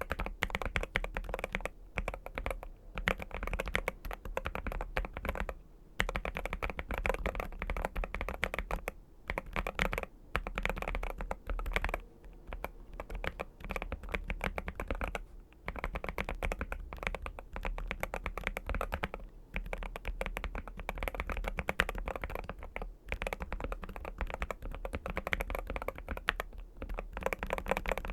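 Fast, continuous typing on a NuPhy Gem80 mechanical keyboard with Lemon switches, PBT keycaps and an aluminium plate: a dense run of key clicks with brief pauses.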